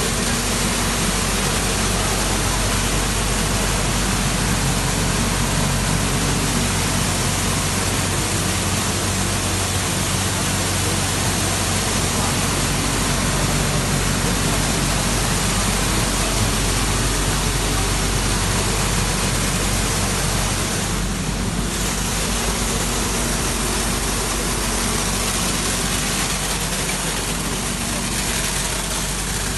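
Tea colour sorting machine running: a steady, loud hiss of air and machinery over a low, even hum.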